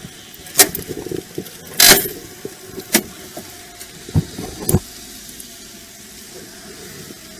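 Knocks and clatters of a car's interior being searched by hand: about five sharp knocks in the first five seconds, one a longer scraping rattle about two seconds in.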